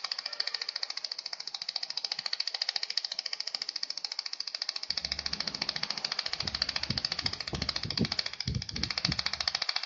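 Pulsed laser welding machine firing a fast, even train of sharp ticks, about ten a second. From about five seconds in, a low rumble and irregular low thuds join the ticking, and it all stops just before the end.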